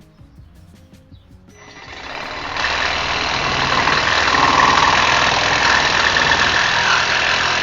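Milwaukee M12 Hackzall (2420-20, brushed non-Fuel) cordless one-handed reciprocating saw starting up about a second and a half in and sawing through a 3/4-inch metal electrical conduit. It sounds loud and steady through the cut.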